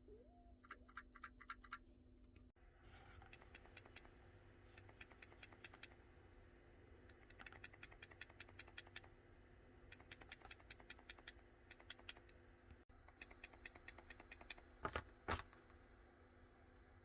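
Faint, rapid clicking rattle in short bursts, several clicks a second, from a Samsung Galaxy S23 Ultra's faulty 10x telephoto camera module as the phone is moved: the sign of a failed optical image stabilisation mechanism. Two louder knocks near the end.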